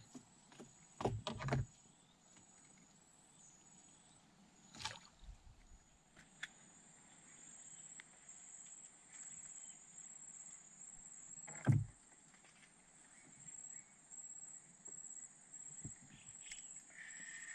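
A few short knocks and thumps against a wooden boat hull as fishing gear and the catch are handled, the loudest a little past the middle. Underneath, insects keep up a steady high-pitched buzz in short pulses.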